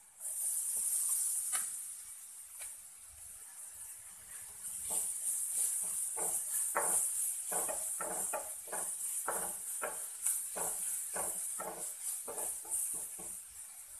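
Chopped onion sizzling as it drops into hot coconut oil in a nonstick frying pan, the hiss starting at once. From about five seconds in, a spatula stirs it, scraping the pan about twice a second.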